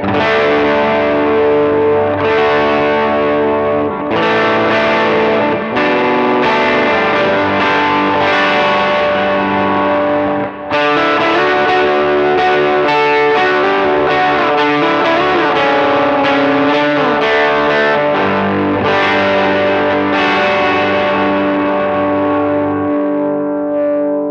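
Electric guitar played through a Very Good Amp Co EP Drive overdrive pedal, with a slightly distorted, ringing tone. Chords are struck and left to ring, fresh ones coming every couple of seconds. Bent or sliding notes sound over a held chord in the middle, and the last chord rings out and fades near the end.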